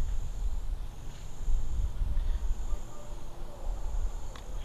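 Insect trilling in high-pitched pulses just under a second long, repeating about every second and a half, over a low wind rumble; a faint click near the end.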